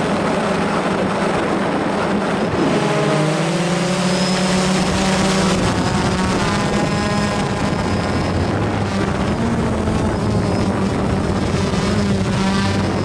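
A small remote-controlled aircraft's electric motors and propellers running, heard close up from on board. Their pitch slides and shifts several times as the craft manoeuvres.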